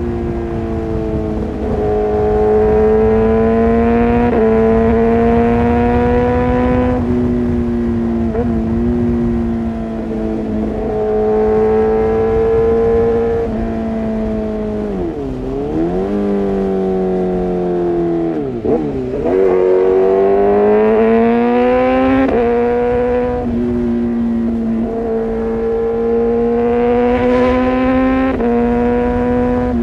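Kawasaki ZX-6R inline-four engine running hard through an Arrow Pro-Race exhaust, holding high revs with small steps in pitch every few seconds. Twice near the middle the revs drop sharply and climb back.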